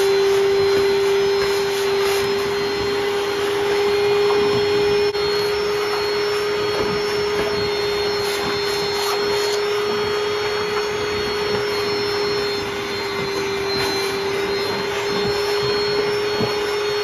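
Wet/dry shop vacuum running with a steady whine as its hose nozzle sucks rust scum and water off the surface of an electrolysis tank.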